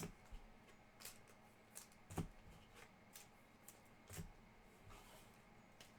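Faint handling of trading cards: a few light clicks and slides scattered over the quiet.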